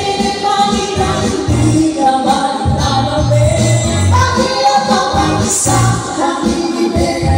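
Women singing into microphones over amplified backing music with a bass line.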